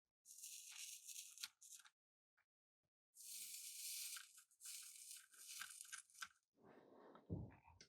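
Soldering iron tip sizzling in short hissing bursts as solder and flux melt onto the spliced power-cord wires, with a low handling thump near the end.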